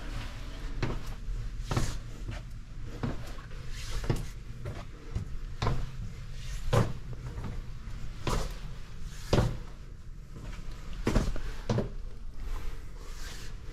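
Footsteps on the steps of a narrow brick tower stairwell: irregular knocks about once a second, some louder than others, with a close, boxy echo. A low steady rumble lies underneath.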